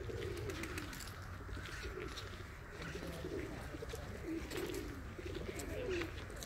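Feral pigeons cooing over and over in low, wavering coos, with scattered light clicks.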